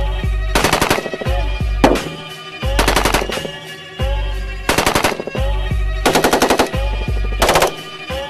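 About six short bursts of fully automatic rifle fire, each about half a second of rapid shots, over background music.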